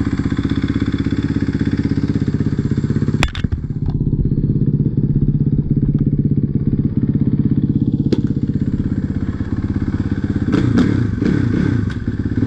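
2014 Suzuki RM-Z450's fuel-injected single-cylinder four-stroke engine idling steadily, with a sharp knock about three seconds in and a few more knocks near the end.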